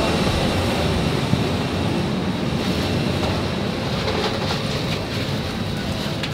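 Steady rumbling noise of an airliner cabin during boarding, with a few faint ticks.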